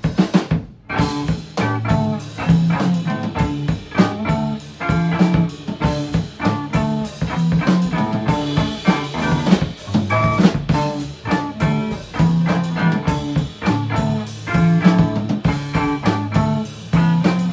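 Recorded rock band music: guitar, bass and drum kit playing a steady beat. The music drops out briefly just after the start, then the full band comes back in.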